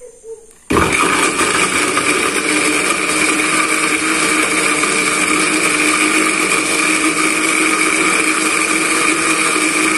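Electric blender switched on about a second in, then running steadily at one speed as it grinds a spice paste with a little water.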